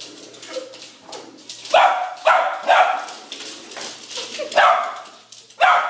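A small dog barks repeatedly at a remote-control toy car. The barks begin about two seconds in and come in a run of about six short, loud barks.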